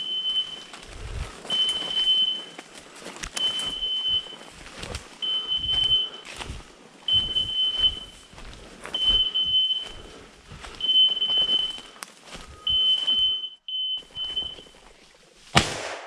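Hunting dog's beeper collar giving a short steady high beep about every two seconds, the usual way to track a dog working thick woodcock cover. Rustling and twig cracks come between the beeps. Near the end the beeps come shorter and closer together, then a single sharp bang.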